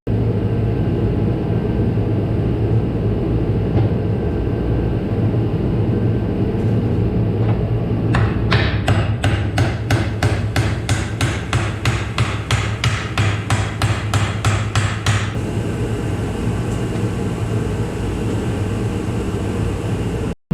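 Hammer striking metal in a fast, even run of about three to four blows a second for roughly seven seconds in the middle, over a steady low hum that runs throughout.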